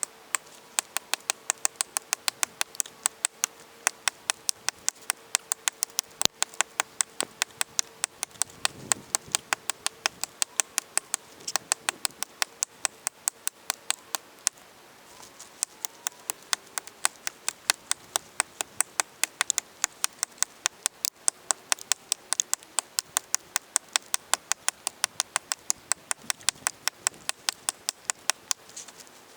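Axe blows chopping into a tree, sped up eight times so each blow comes as a short sharp click, about four a second, with a brief pause about fifteen seconds in.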